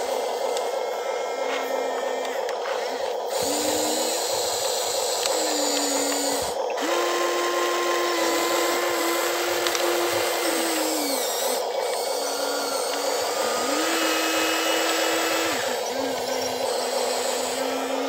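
Electric motors and gears of a Huina 1593 RC excavator whirring as it moves its arm and bucket through the soil, in several runs that rise in pitch, hold and drop, over a steady hum.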